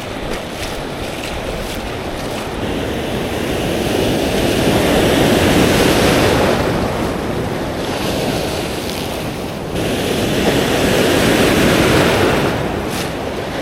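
Ocean swell surging and washing over a rock ledge, building up twice, with wind rumbling on the microphone.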